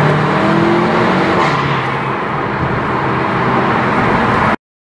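Seat Leon Cupra 300's turbocharged 2.0-litre four-cylinder heard from inside the car under acceleration: the engine note rises for about a second and a half, then drops back as the DSG gearbox shifts up, and the engine pulls on steadily before the sound cuts off suddenly near the end.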